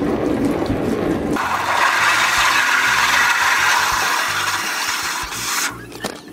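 Water from a hose spraying onto the mesh of a screen-printing screen while a hand rubs it, washing out the unhardened photo emulsion to open the stencil. A softer splash at first, then a loud steady hiss from about a second and a half in that cuts off suddenly near the end.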